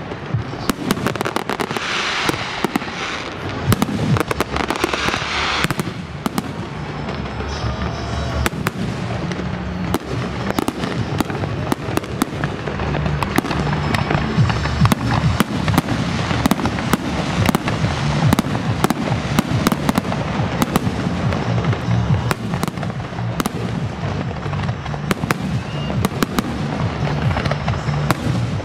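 Fireworks going off in a dense, continuous run of bangs and crackles, with music playing underneath.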